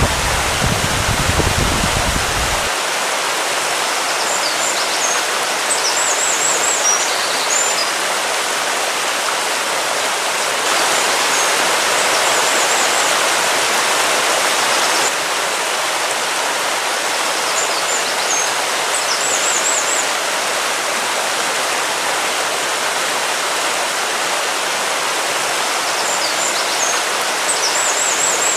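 Steady rushing of water. Brief high bird chirps come back several times, about every six to seven seconds. A low rumble cuts off about two and a half seconds in.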